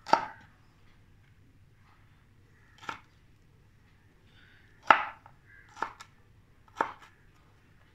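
Kitchen knife chopping green bell pepper (capsicum) into cubes on a wooden cutting board: five separate strokes, spaced irregularly, the loudest about five seconds in.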